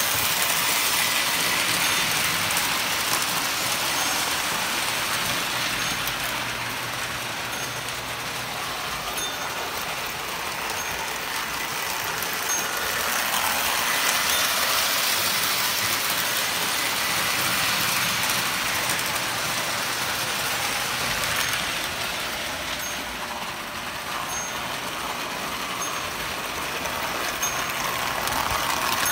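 Double-headed Lionel postwar O-gauge steam locomotives pulling freight cars on three-rail track: a steady whir of the motors and wheels. It swells louder and fades as the train passes close by.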